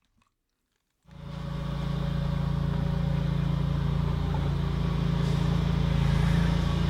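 A steady low engine drone fades in about a second in, after near silence, and holds at an even level.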